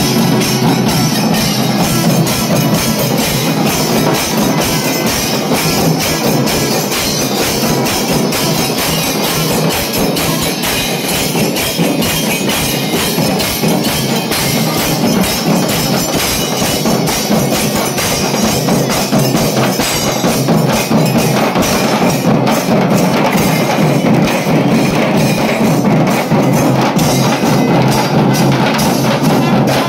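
A procession band of large barrel drums played with sticks, with hand cymbals, beating a loud, fast, dense rhythm.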